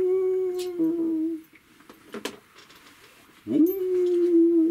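A puppeteer's voice imitating a dog howling: two long howls, each swooping up and then held on one slightly sinking note, the second beginning about three and a half seconds in. The howls are the dog's call for its master.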